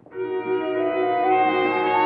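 Brass music bridge between scenes of a radio drama: a held chord swells in within the first half-second and is sustained, with one voice moving up a step about a second and a half in.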